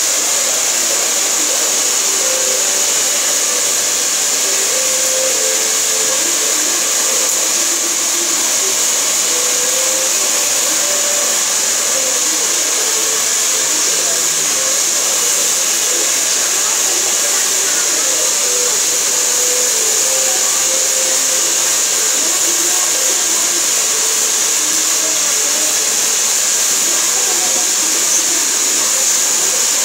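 Hand-held hair dryer blowing steadily at one setting, a loud, even rushing hiss that doesn't change.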